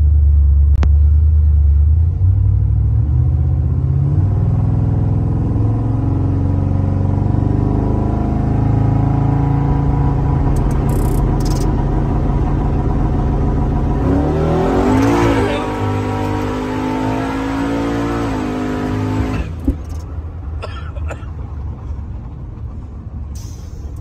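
Twin-turbo Chevrolet Silverado's engine heard from inside the cab as the truck drives. Its pitch climbs in steps, then rises sharply about fourteen seconds in. It drops off near twenty seconds when the throttle lifts, and the truck settles to a quieter cruise.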